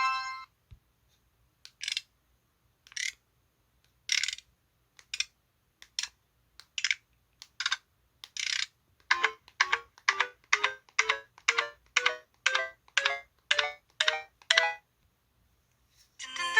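LG-SH130 mobile phone's built-in electronic sound effects played in turn: short high blips about a second apart, then, from about nine seconds in, a quick run of about sixteen short pitched beeps, roughly three a second.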